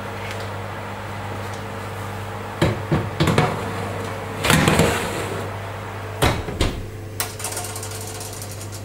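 Metal baking tray knocking against the oven's wire rack and scraping as it is slid in, then knocks as the oven door is shut. Near the end, a fine rapid clicking as an oven control knob is turned.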